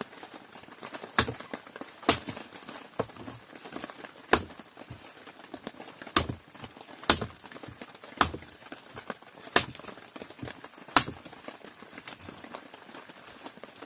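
About ten sharp knocks, unevenly spaced roughly a second apart.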